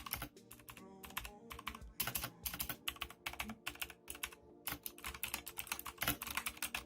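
Typing on a Koolertron 87-key mechanical keyboard with clone Cherry MX Blue clicky switches: a fast, uneven stream of sharp key clicks.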